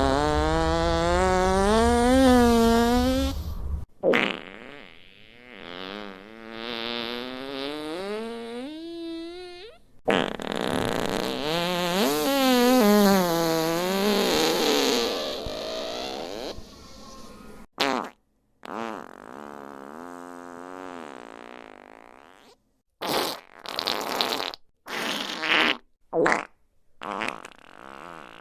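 A string of fart sound effects played one after another. Three long ones come first, each with a wobbling, wavering pitch and a sharp cut-off. They are followed by a run of short, quick blasts with brief silences between them.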